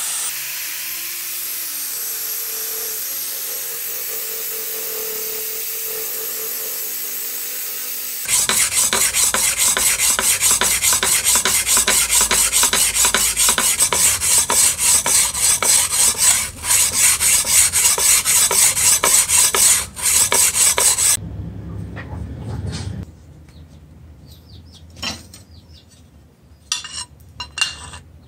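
A small angle grinder with a sanding disc runs against a steel blade with a steady hiss. About eight seconds in, it gives way to a louder, quick back-and-forth rasping of steel rubbed by hand on wet stone, which stops about three-quarters of the way through. Near the end come a few light clicks from handling the knife.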